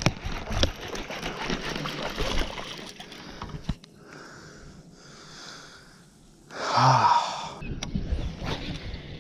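An angler breathing hard while fighting a hooked bass, with one loud gasping exhale about seven seconds in. Clicking and rattling of rod-and-reel handling fills the first three seconds.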